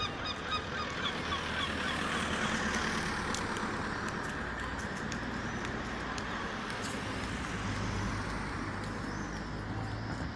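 A large flock of gulls calling, many short cries overlapping into a continuous clamour, over a steady low rumble.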